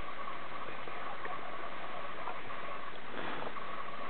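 Forest insects droning: one steady, unbroken high-pitched hum with a faint hiss around it. A brief faint noise comes about three seconds in.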